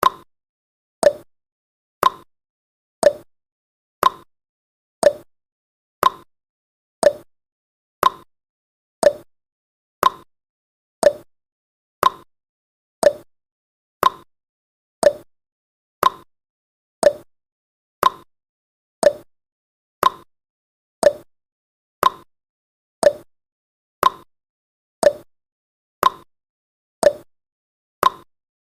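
Countdown timer tick sound effect: short, sharp clock-like ticks, one every second, each dying away quickly.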